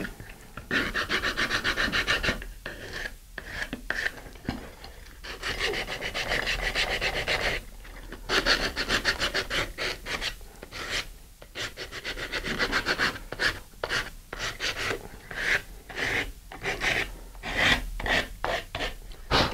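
Sandpaper on a sanding bar rubbed quickly back and forth along the edge of a wooden rocket e-bay sled plate, rounding off its tabs. The strokes come in runs of several seconds with short pauses between them.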